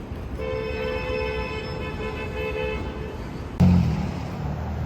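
A vehicle horn held steadily for about two and a half seconds. About three and a half seconds in, a sudden, louder low-pitched sound starts and runs on.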